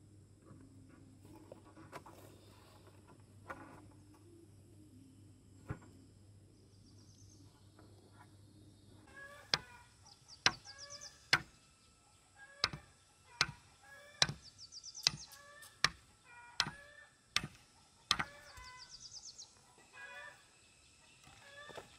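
Repeated sharp strikes of a hand tool, about one every three-quarters of a second, beginning about nine seconds in. Before they start there is only a faint steady low hum.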